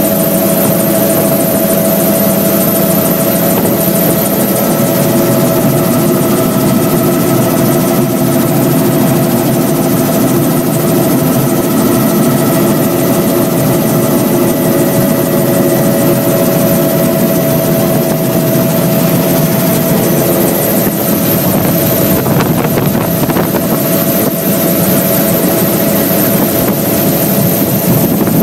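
Helicopter engine and rotor running loud and steady, heard from inside the cabin as it lifts off and climbs away, with a steady whine over the rotor noise.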